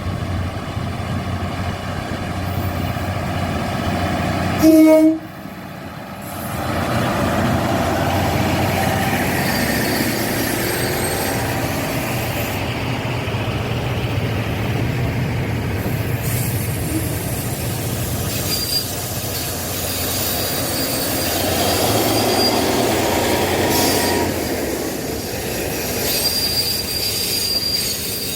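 KiHa 183 diesel railcar train running, with a short horn blast about five seconds in, the loudest sound here, followed by the steady rumble and wheel noise of the train on the rails.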